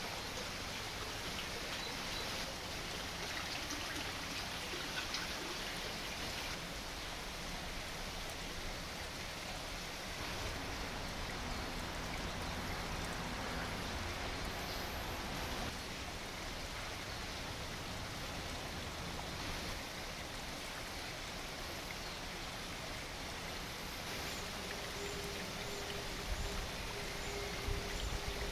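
Small forest stream running steadily, an even rushing of water, with a few soft low bumps near the end.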